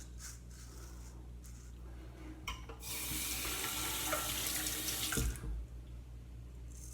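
Tap water running into a sink for about two seconds, starting with a click and ending with a knock as the faucet is shut off.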